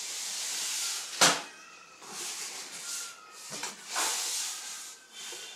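Cardboard packaging of a boxed home-theatre set being handled: rustling and scraping, with one sharp knock about a second in and a softer bump near four seconds.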